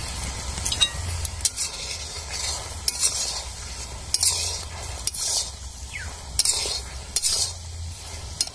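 A metal spatula stirs and scrapes chilli chicken around a metal kadai in about ten uneven strokes, over the sizzle of the bubbling sauce.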